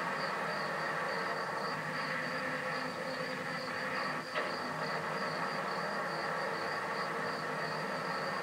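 Freight train running by at night: a steady mix of rolling noise and faint metallic ringing tones. Above it a high insect chirp pulses about three times a second, and there is a single click about four seconds in.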